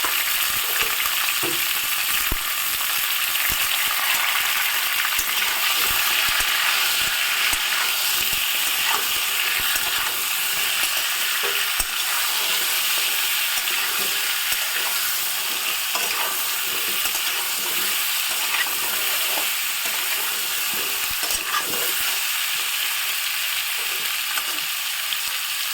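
Cut vegetables (papaya, carrot and potato chunks) sizzling steadily as they fry in mustard oil in a kadai, with scattered clicks and scrapes as they are stirred.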